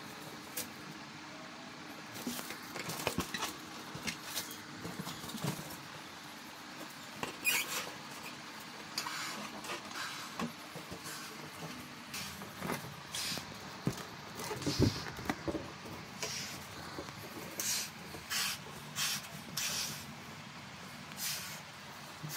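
Latex balloons being handled and blown up by mouth: scattered short rubber squeaks and rubs, with puffs of breath into the balloon.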